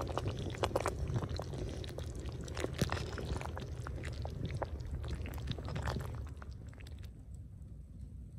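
A hand squishing and mixing soft, wet ingredients in an aluminium pot, with many small crackles and clicks over a low rumble. The sound drops away about seven seconds in.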